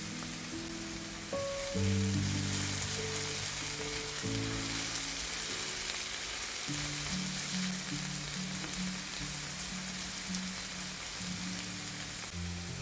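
Mushrooms, onions and garlic sizzling as they fry in a pan, a steady hiss, over background music with slow low notes.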